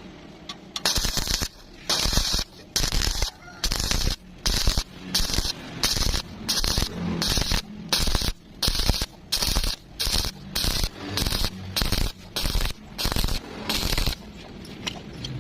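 Electric welding arc crackling in short bursts, about two a second, the arc struck and broken again and again as a vertical joint is stitch-welded. The bursts begin about a second in and stop shortly before the end.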